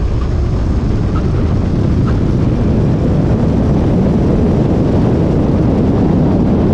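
Heavy wind rush buffeting the microphone, with road and tyre noise, from an electric motorcycle accelerating hard on the open road to well over 150 km/h. It is a steady, deep roar with no engine note.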